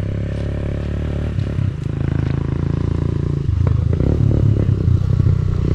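A motor vehicle's engine running steadily close by; about three and a half seconds in it gets louder, with some clattering.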